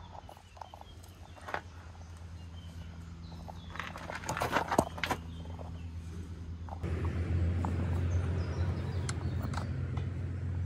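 A steady low hum that gets louder about seven seconds in, with scattered taps and a burst of rustling and clicks around four to five seconds in.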